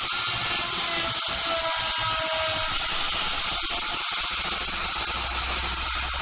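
DMR12 electric router with a cladding groove bit running at speed, cutting a groove into an aluminium composite panel: a steady high whine over cutting noise. Near the end the whine starts to fall as the motor slows.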